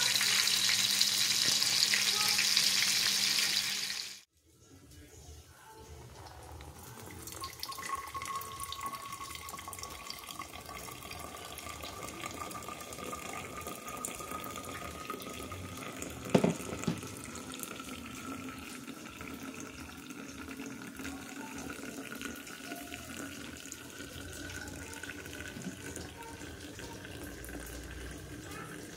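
Banana fritters sizzling loudly in hot oil in a frying pan, cutting off suddenly after about four seconds. Then hot water poured from a kettle onto ground coffee in a paper filter: a steady trickle with a faint tone slowly rising in pitch, and a single knock about halfway through.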